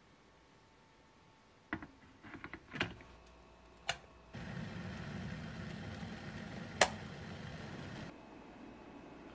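BALMUDA electric kettle set down on its base with a few light clicks and knocks, and its switch clicked on. Then a steady rushing noise of the water heating, with one loud sharp click partway through, cutting off abruptly near the end.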